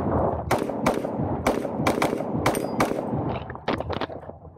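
Rapid pistol fire from a custom Victor Precision open gun in .38 Super: sharp shots in quick succession, about two a second, with a short pause near the end.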